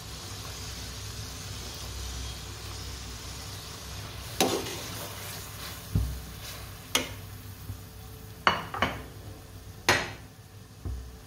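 Metal slotted spatula stirring a sizzling mixture of ghee, yogurt, tomatoes and fried onions in an aluminium pot. It scrapes steadily, then knocks sharply against the pot about six times in the second half.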